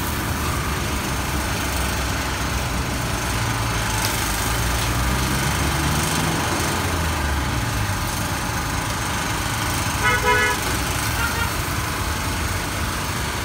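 Street traffic running steadily, with a vehicle engine passing in the middle and a short vehicle horn toot about ten seconds in.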